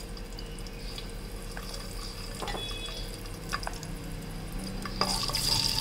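Whole spices (mustard seeds, cumin, green cardamom and cloves) sizzling and crackling in hot oil in a pot: a tadka being tempered. The sizzle grows louder about five seconds in.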